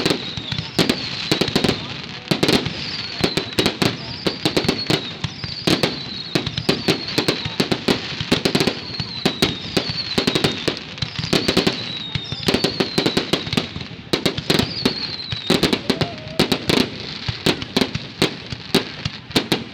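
Aerial fireworks going off: a dense run of sharp bangs and crackling bursts, over a high whistle that falls in pitch and repeats about once a second.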